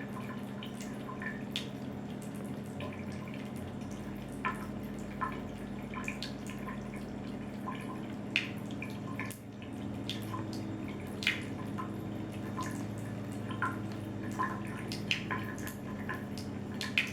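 A thin stream of water running from a tap over a steady low hum, broken by irregular small drips and splashes as a cat drinks from it.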